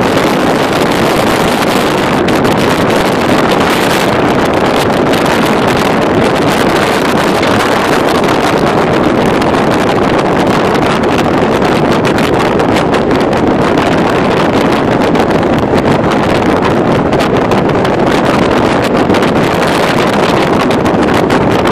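Loud, steady rush of wind and road noise from a moving vehicle, heard on the phone's microphone.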